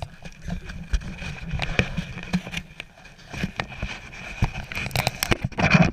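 Handling noise on a body-worn action camera: a soccer ball held against it rubs and bumps the housing, making irregular knocks and scuffs that grow louder near the end.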